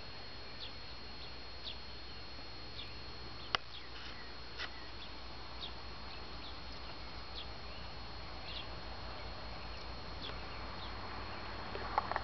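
Summer meadow ambience: a bird's short falling chirps about once a second over a steady high whine and a light hiss. A single sharp click sounds about three and a half seconds in, and a faint broad noise swells near the end.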